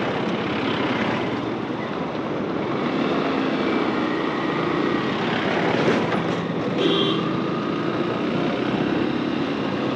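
Motorcycle riding on a dirt road: steady wind rush on the helmet-mounted microphone over the engine's hum and tyre noise. A brief beep sounds about seven seconds in.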